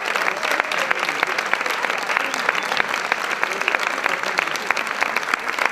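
Large audience applauding: dense, continuous clapping that keeps up evenly without a break.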